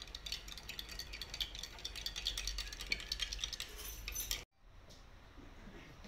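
A teaspoon clinking rapidly against the inside of a drinking glass while stirring baking soda into hot water. The clinking stops suddenly about four and a half seconds in, leaving only faint room sound.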